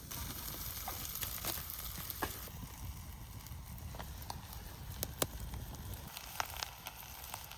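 Potato slices frying in a pan over a campfire: a steady sizzle broken by scattered sharp pops and crackles.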